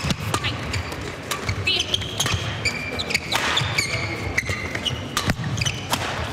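Badminton doubles rally: repeated sharp racket strikes on the shuttlecock and court shoes squeaking on the floor, echoing in a sports hall.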